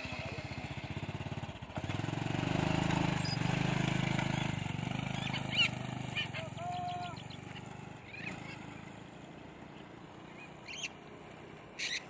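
Honda underbone motorcycle's small single-cylinder engine running, then pulling away and fading into the distance over several seconds. A few short high calls come through near the end.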